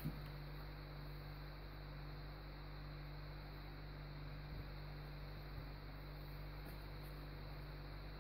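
Steady low electrical hum over a faint hiss, with a small tap right at the start and a couple of faint ticks later.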